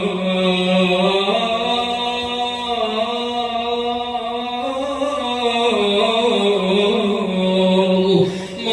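A male reciter's voice chanting a lamentation in long held notes that waver and slide slowly in pitch, without clear words, with a short break for breath near the end.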